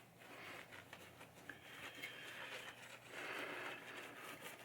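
Faint hand rubbing on a pinball playfield during polishing, with two longer strokes, the first about two seconds in and the second about three seconds in.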